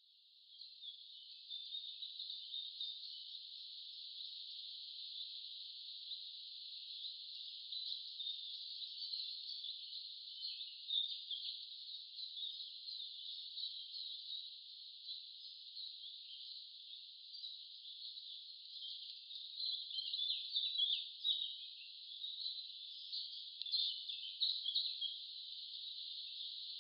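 A steady chorus of chirping insects: dense, high-pitched trilling that swells a little in the second half.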